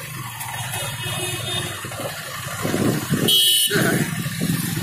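Suzuki GS150R motorcycle riding through traffic: steady engine and road noise. About three and a half seconds in, a brief high-pitched beep cuts through.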